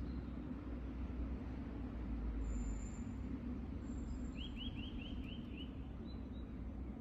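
Outdoor ambience: a steady low rumble of distant road traffic, with small birds calling over it. There are a couple of thin high whistles in the first half and a quick run of six rising chirps about four and a half seconds in.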